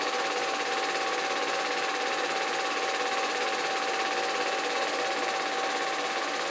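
A small machine running steadily, with a constant whine over an even whirring hiss.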